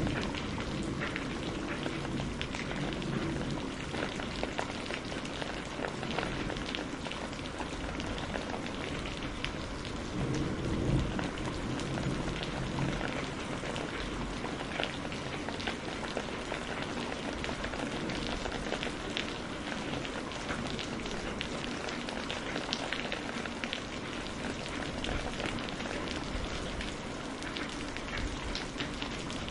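Steady rain: a dense hiss with many separate drop ticks. A low rumble of thunder swells briefly about ten seconds in.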